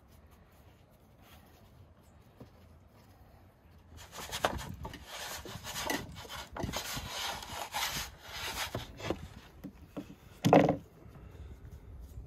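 A wooden peel scrapes and rubs over a wooden table for about five seconds, starting about four seconds in, then gives one dull thump near the end.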